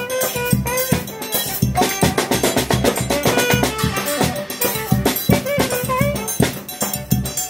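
Live band music: a saxophone plays the melody over a piano accordion and a drum beaten with a stick in a steady rhythm. In the middle of the stretch the held saxophone notes give way to a busier run of short notes before the melody returns.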